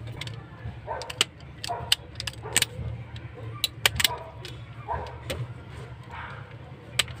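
Sharp clicks and taps, a dozen or so at irregular intervals, as a fuse-holder wire is handled and fitted into a car amplifier's push-in 12 V power terminal. A steady low hum runs underneath.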